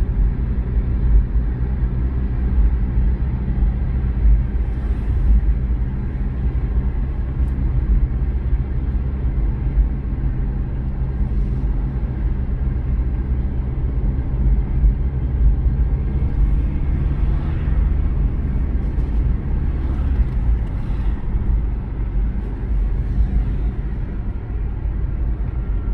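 Steady low rumble of a car's engine and tyres on the road, heard from inside the moving car.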